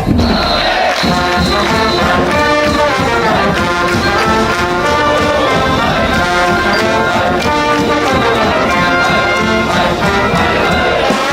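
Orchestral cartoon score led by brass, playing a melody of steady notes that change every fraction of a second.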